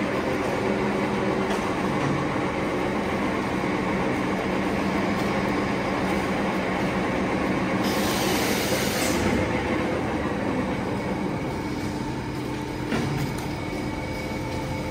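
Automatic double-stack napkin paper folding machine running steadily: a dense, even mechanical clatter with faint steady tones. A short hiss comes about eight seconds in and lasts about a second.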